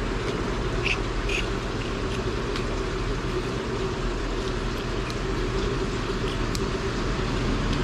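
Steady background hiss with a low hum. Two short squeaks come about a second in, and a few faint clicks are scattered through.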